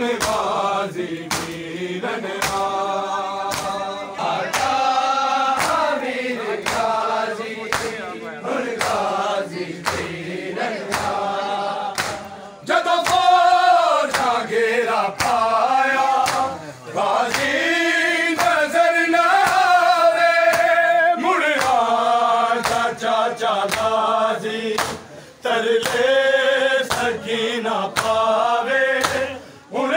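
A crowd of men chanting a noha, a Shia lament, in unison, in long sung phrases with short breaks. Under it runs a steady beat of sharp, hollow slaps: hands striking bare chests in matam, in time with the chant.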